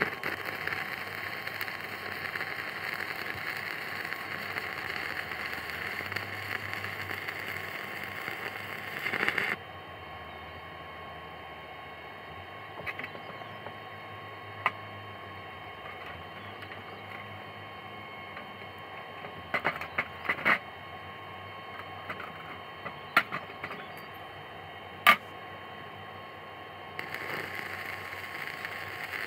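Stick-welding arc from an AP Welding MMA-400 inverter welder crackling and hissing steadily for about nine seconds, then cutting off. A few scattered clinks and taps follow, and the arc starts crackling again near the end.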